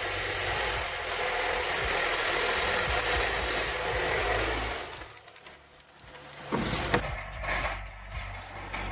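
Metal lathe running and cutting with a steady noise that cuts off about five seconds in, followed by several sharp metal knocks and clanks over a lower steady hum.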